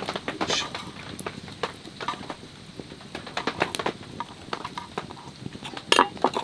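Raw chicken pieces being put into a small stainless steel cook pot by hand: irregular soft taps and knocks, with the loudest clunk just before the end.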